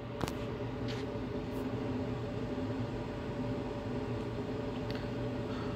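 Steady low machine hum, as of a fan or appliance motor running, with two faint clicks in the first second.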